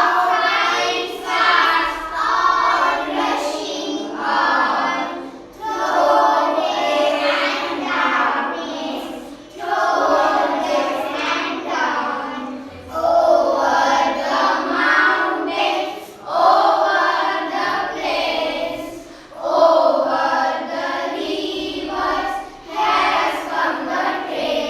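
A class of children singing an English poem in unison, in phrases a few seconds long with short breaks between them.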